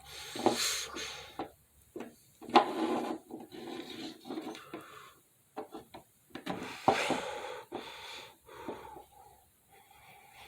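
Toy animal figures being rubbed, scraped and knocked together in a mock fight, in irregular bursts with short clacks between quieter gaps.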